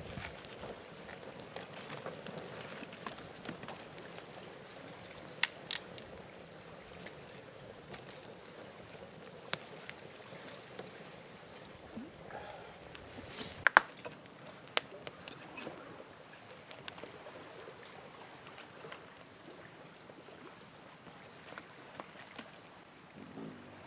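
Small wood campfire crackling, with a few sharp pops, the loudest about 14 seconds in.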